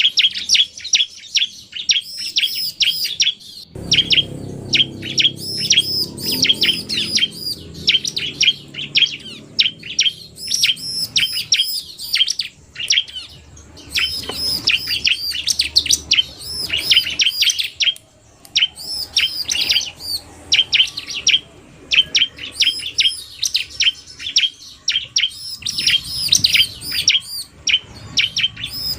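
Bar-winged prinias (ciblek) calling: a male in full song mixed with a female's fast calls, in rapid strings of high, sharp chirps that come in dense bursts with short pauses between them.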